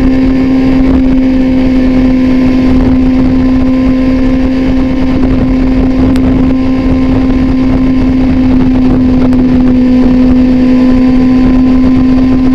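Motorcycle with an Austin Racing aftermarket exhaust cruising at highway speed, its engine note holding steady at constant revs, with wind noise on the microphone.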